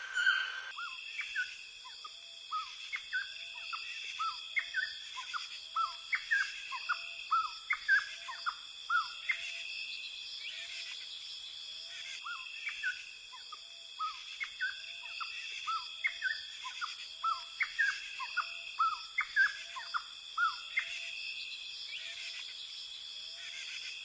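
Rainforest ambience: birds giving many short chirps, several a second, with a low hooting note repeating about once a second, over a steady high-pitched drone.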